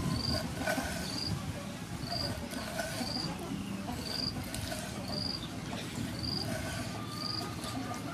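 An insect chirping: short, high chirps repeating evenly about once a second, over a low rustling and a few light clicks.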